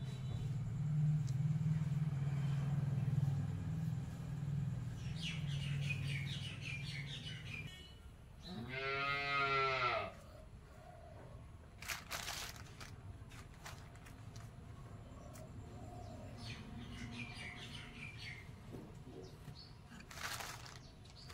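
Rural background sound: a low hum for the first several seconds, birds chirping, and one long animal call rising and falling in pitch about nine seconds in, with a sharp knock around twelve seconds.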